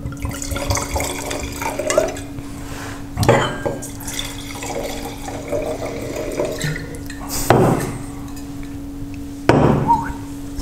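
Red wine being poured from a bottle into stemmed wine glasses, the liquid splashing and gurgling into the glass, with a few short knocks of glass on glass or on the table, the last near the end as the bottle is set down.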